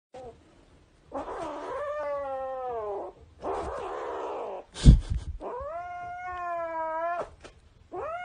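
Kitten yowling in about four long, drawn-out, wavering calls. A single sharp thump comes a little before the middle and is the loudest sound.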